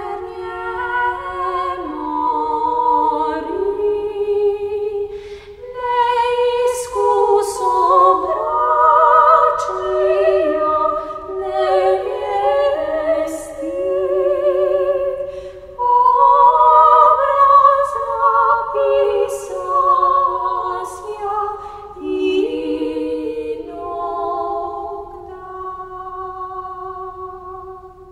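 Unaccompanied choir singing Orthodox sacred chant in sustained, blended chords, the phrases swelling and easing, softer near the end.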